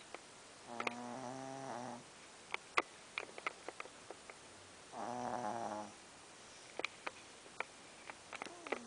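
Snoring: two pitched snores, each about a second long, about four seconds apart, with small clicks in between.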